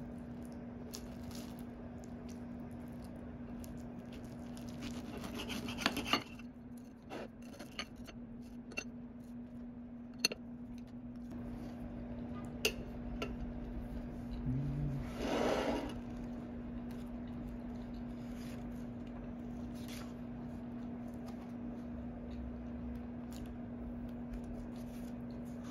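A steel knife and fork scraping and clicking against a ceramic plate while cutting through toast topped with avocado and a fried egg, with a few sharp clinks. A steady low hum runs underneath.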